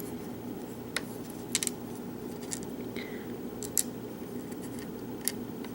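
A few light, sharp clicks of small brass lock pins and springs being handled while a pin-tumbler lock core is taken apart, over a steady low hum.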